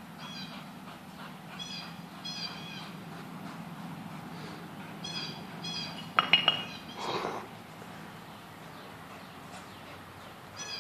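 Birds calling outdoors in short, repeated high chirps, singly and in pairs. About six seconds in there are a few quick metallic clinks, followed by a brief rustle.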